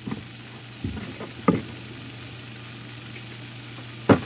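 Handling noise from a camera that has been set down with its lens covered: a few short knocks and rubs, the loudest near the end, over a steady low hum and hiss.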